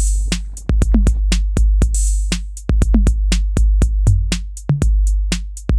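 Background electronic music: a drum-machine beat of quick, sharp hits over a heavy bass.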